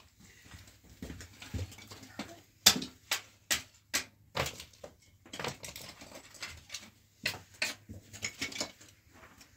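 A string of irregular sharp clicks, knocks and scuffs, loudest a little under three seconds in: footsteps on a gritty dirt floor and small pieces of split wood being handled and knocked together.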